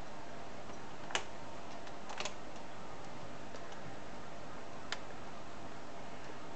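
A few sharp isolated clicks over a steady hiss: one about a second in, a quick double click about two seconds in and another near five seconds, from a cat's claws and paws tapping on a plastic windowsill.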